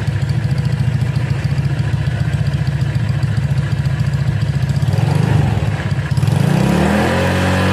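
Automatic scooter engine breathing through a KJS aftermarket racing exhaust, idling with a lumpy pulse, then revved up about six seconds in and held at higher revs near the end.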